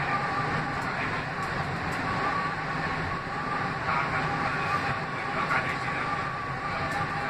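R160B subway car running at speed, heard from inside the car: a steady rumble of wheels on rail with a steady high whine over it.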